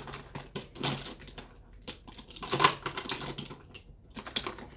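Small plastic makeup items clicking and clattering as they are sorted through, in a run of quick, irregular clicks.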